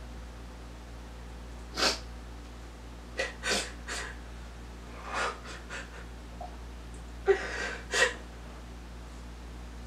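A woman crying quietly: short sniffles and sobbing breaths in bursts a second or two apart, with quieter stretches between.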